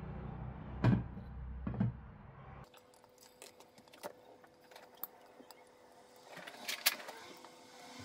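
Peppers frying in a covered pan: a fine sizzle with scattered small pops and crackles that grows louder near the end. Early on a glass pan lid knocks twice against the metal pan as it is put on, and a sharper clatter comes near the end as the pan is handled.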